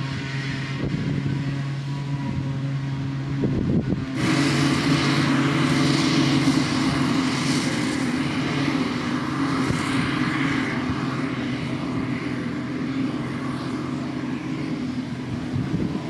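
Claas Jaguar 940 forage harvester chopping grass under load, its engine and chopper running steadily alongside the tractor hauling the trailer. About four seconds in the sound changes abruptly and gets louder, with much more hiss, as the harvester is heard from behind.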